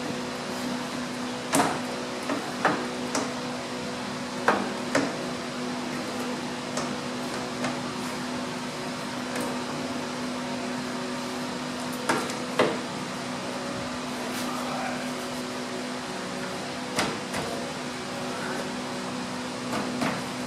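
Irregular knocks and clunks as a Fluidyne aluminum racing radiator is handled and worked into place in a Dodge Viper's radiator bay and shroud, over a steady electric hum.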